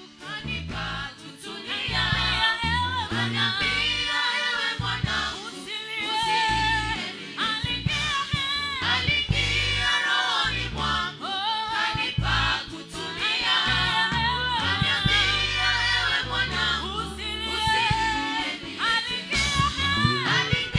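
Gospel praise song: voices singing over a band with a moving bass line.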